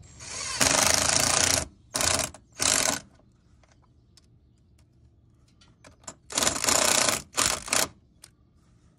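Ryobi cordless impact driver running lag bolts into wood to fasten a slide-out roller, in bursts: a long run of about a second and a half at the start, two short ones just after, then a pause of about three seconds and two more bursts about six seconds in.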